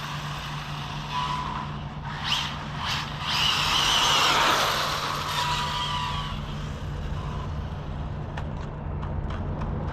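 Stretched Arrma Typhon RC car's electric motor whining as the car drives past, the sound swelling to its loudest about four seconds in and then fading, over a steady low hum.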